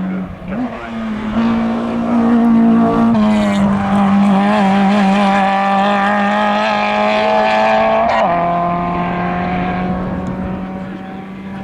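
Hill-climb race car engine running at high revs, with several gear changes, loudest as it passes and then fading away.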